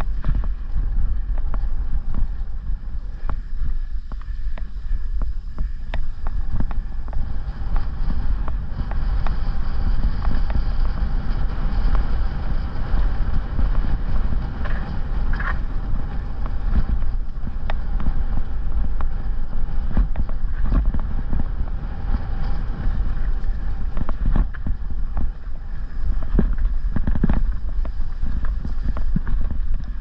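Wind buffeting the microphone of a mountain-bike-mounted camera over the low rumble of the tyres rolling down a dirt trail, with frequent knocks and rattles from the bike over bumps.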